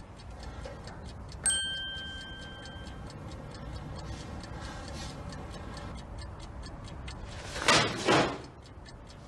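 A clock ticking steadily in a quiet room. A single bright ding rings out about a second and a half in and lasts for over a second. There is a short loud burst of sound near the end.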